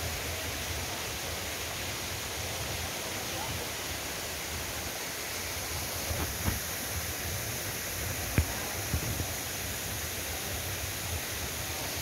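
Steady rushing hiss of running water, with a low, uneven rumble of wind on the microphone and a few sharp knocks past the middle.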